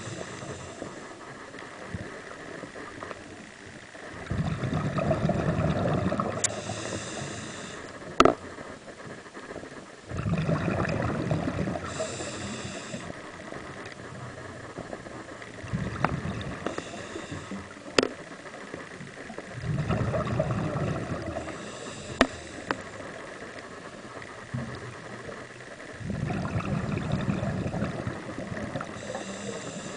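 Scuba diver breathing underwater through a regulator: about five slow breaths, each a loud bubbling exhale followed by a quieter hissing inhale. Three sharp clicks fall between the breaths.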